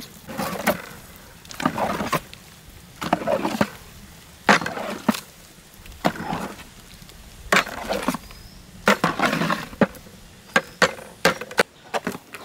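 A wooden stirring stick scraping and knocking against a large metal pot as thick ragi (finger millet) dough is worked with push-pull strokes, repeating about once a second with sharp clicks in places.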